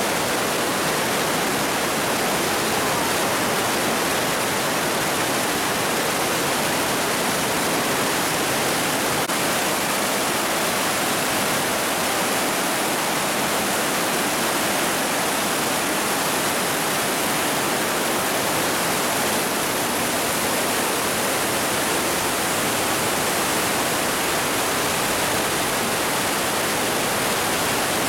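The Partnach river in spate after a rainstorm, a steady loud rush of whitewater churning through the narrow rock gorge.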